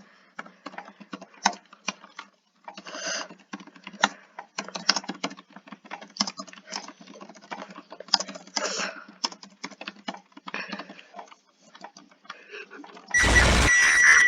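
Scattered soft clicks and taps, irregular, for most of the time. About a second before the end, a loud, harsh electronic emergency alert alarm cuts in abruptly: a noisy blast with high steady tones.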